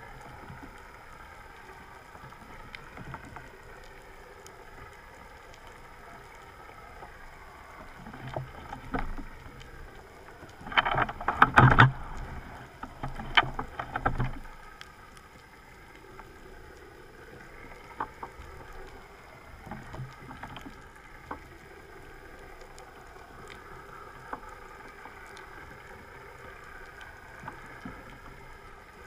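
Underwater recording: a faint steady hum with slowly wavering pitch, like a boat motor carried through the water, under a low hiss. Near the middle come several loud rushing, bubbling bursts, one after another for a few seconds, with a couple of smaller ones later.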